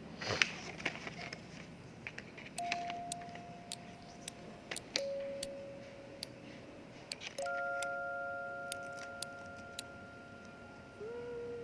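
Scattered light clicks and taps of small items being handled, over sparse, sustained bell-like notes of background music that come in about two and a half seconds in.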